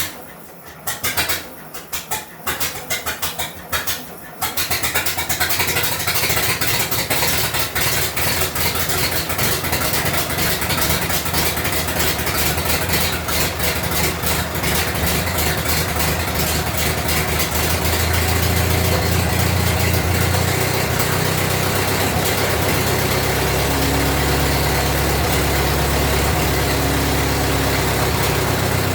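1924 Dodge Brothers four-cylinder engine firing unevenly in short bursts for about four seconds, then catching and running steadily through a bare exhaust pipe with no muffler; its rumble grows deeper and louder about two-thirds of the way through. It is running on a freshly refitted carburetor that is not yet adjusted.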